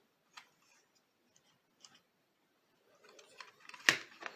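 Light plastic clicks and taps of a Transformers Deluxe Ratchet toy being handled, a few scattered at first, then a quick run of clicks about three seconds in with a sharper click near the end.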